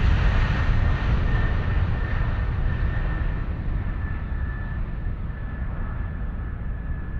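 Aircraft engine noise with a thin steady whistle, growing slowly fainter as its higher sounds die away, as a plane does when it flies off into the distance.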